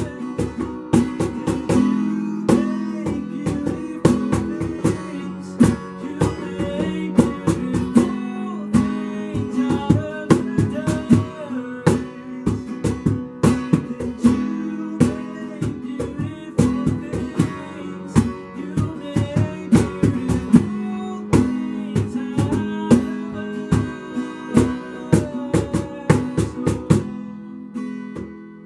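Acoustic guitar strummed in a steady rhythm, instrumental, easing off and getting quieter near the end.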